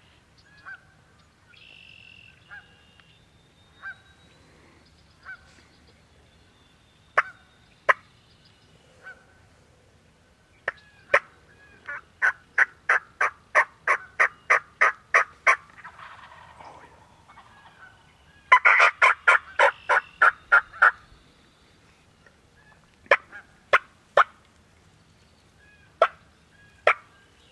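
Turkey yelping and clucking: scattered single sharp clucks, then two runs of yelps about four a second, the second run, about two-thirds of the way in, the loudest.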